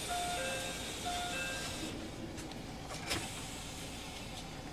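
A two-tone electronic chime, a higher note then a lower one, sounding twice in quick succession, over a steady low hum. A single sharp click follows about three seconds in.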